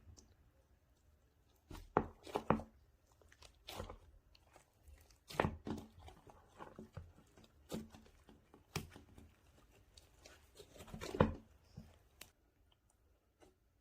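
Hands pressing, squishing and stretching a soft ice-cream slime, giving irregular sticky pops and crackles, the loudest a little after two seconds in and near the end.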